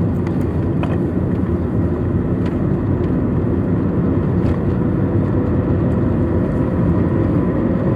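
A car driving along a highway, heard from inside the cabin: steady engine and road noise with a faint steady whine.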